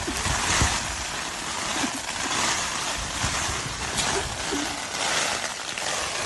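Heavy rain pouring down onto a flooded street: a steady, dense hiss of water that swells and eases a little.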